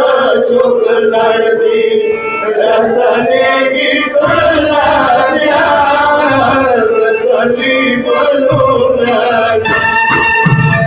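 A man's voice chanting a Shia matam lament (noha) over a sustained organ-like keyboard drone. Low drum beats come in about four seconds in.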